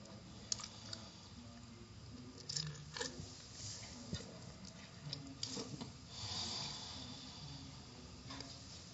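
Automatic car wash tunnel running: a low steady machinery hum with scattered irregular clicks, and a brief hiss about six seconds in.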